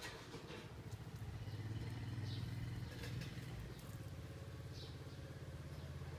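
A motor engine running steadily, a low hum that grows a little louder about two seconds in and eases off again. Two faint short high chirps sound over it.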